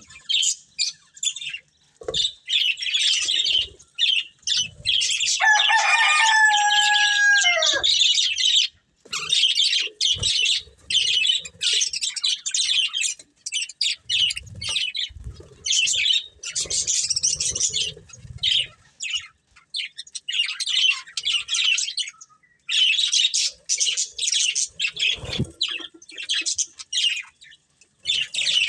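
A pair of budgerigars chattering and chirping almost without pause in a quick, busy warble. About six seconds in, one longer, clearer call stands out and drops in pitch at its end.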